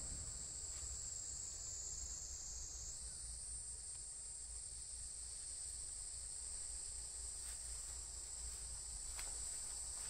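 A steady, high-pitched chorus of insects chirring, with a faint low rumble underneath.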